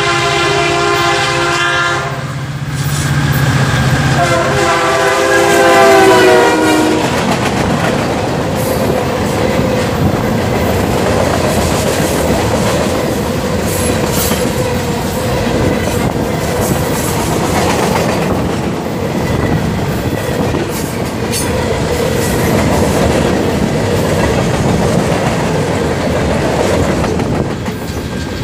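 A locomotive's multi-note air horn sounds in two long blasts within the first six or seven seconds, the second the loudest. Then a freight train rolls past close by, with a steady rumble and wheels clicking over the rail joints.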